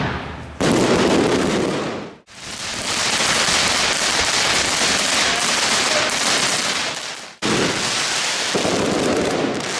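Fireworks: a dense hissing crackle from fountains and spark showers, with no clear single bangs. The sound changes abruptly three times, about half a second, two seconds and seven seconds in.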